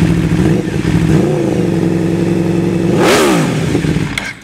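Aprilia RSV4's V4 engine idling through a Fuel F1R prototype end can, with a small throttle blip and then one quick rev about three seconds in that rises and falls sharply. The sound stops abruptly near the end.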